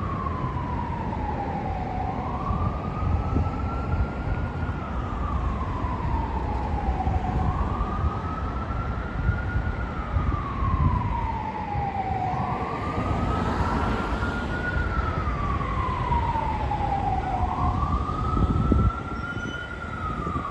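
Emergency vehicle siren on a slow wail, rising and falling about every five seconds, over low city traffic rumble.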